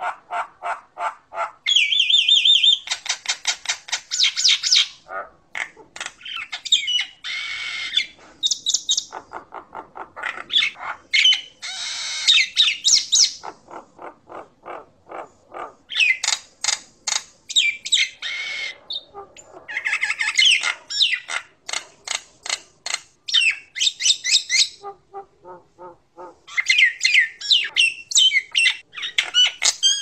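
Common myna (jalak nias) singing: a varied run of rapid chattering clicks, harsh squawks and whistled notes, in bursts with short pauses between.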